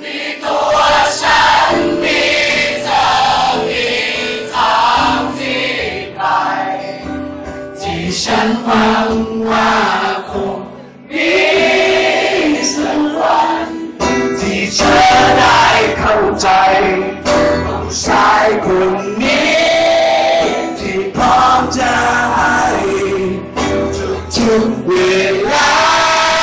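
Live song: many voices singing the melody together over a strummed acoustic guitar, like a concert audience singing along.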